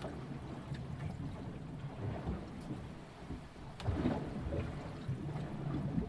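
Sea water rushing and sloshing along a sailboat's hull at 3–4 knots, heard from inside the boat: a steady low rumble with patter, swelling into a louder surge about four seconds in.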